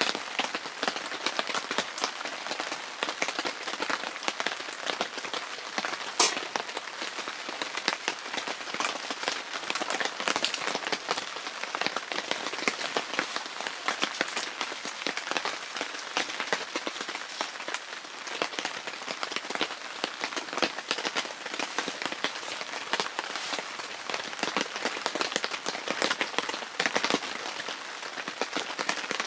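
Steady rain falling on the tent fabric overhead: an even wash of rain with a dense scatter of individual drop taps, one sharper tap about six seconds in.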